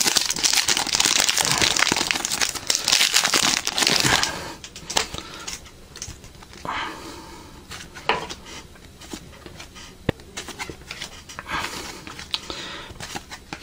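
A trading-card pack wrapper crinkles and tears open for about four seconds. After that come softer rustles and flicks as the cards are handled and sorted.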